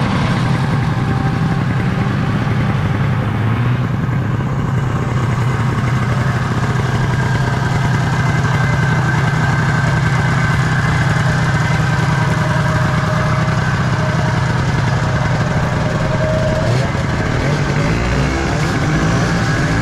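Vintage two-stroke snowmobile engine running loud and steady at idle. From about three-quarters of the way in, a wavering pitch that rises and falls joins it.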